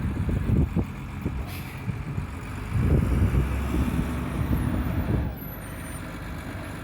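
Forklift engine running while it handles lumber, a low rumble that grows louder for about two seconds in the middle and then eases back.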